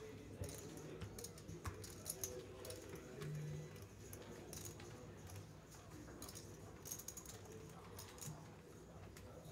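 Faint, irregular clicks and clacks of poker chips and cards being handled at the table, over a low steady background.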